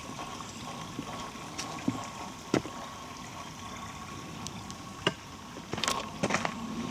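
A small stream trickling steadily. A few sharp clicks break in, about two and a half and five seconds in, and several more close together near the end.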